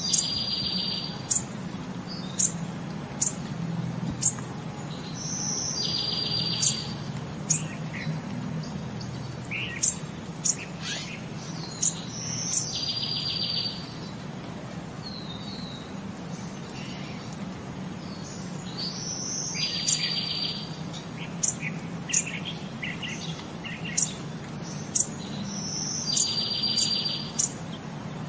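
Birdsong: a short buzzy trill that recurs about every six and a half seconds, with scattered brief high chirps in between, over a low steady hum.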